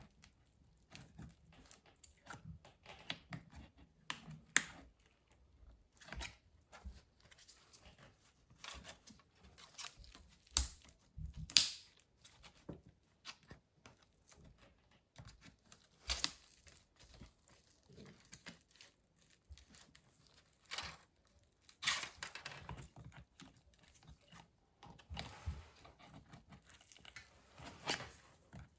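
Scraper working at the glued-in battery of a MacBook Pro: irregular scrapes and sharp clicks, with the crackle of adhesive and tape pulling loose.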